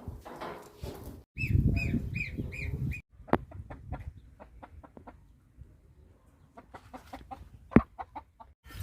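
Chickens clucking in a short run of five or six repeated calls, followed by scattered sharp clicks.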